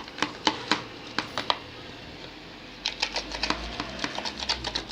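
Slime being kneaded and squeezed by hand to work dye through it, giving quick irregular sticky clicks and pops. They stop for about a second near the middle, then come thick and fast again.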